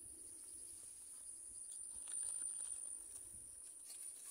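Quiet outdoor ambience: a steady, high-pitched insect drone, with faint soft clicks and rustles from raw fish being handled in a plastic basin.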